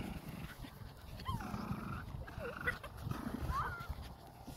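Puppies play-fighting over a toy, giving several short whines and yips that slide up and down in pitch.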